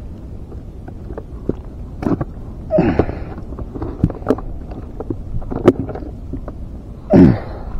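Water gurgling and slapping against a kayak hull, with scattered knocks as a fishing rod and reel are handled against the hull. Two louder short gulps drop in pitch, about three seconds in and again near the end.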